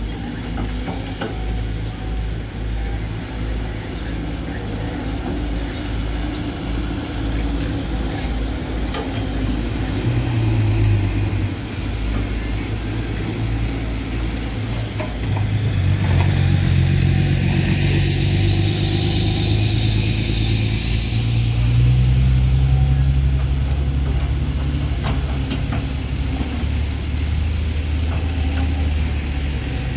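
Volvo EC210D crawler excavator's diesel engine running steadily, its pitch and load swelling several times as the arm and bucket dig and lift dirt. A higher whine rises and falls for a few seconds about halfway through.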